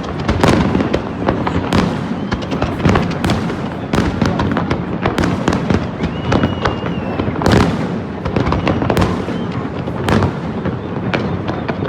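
Fireworks display going off in a dense, continuous barrage: many sharp bangs and crackles overlapping at irregular intervals.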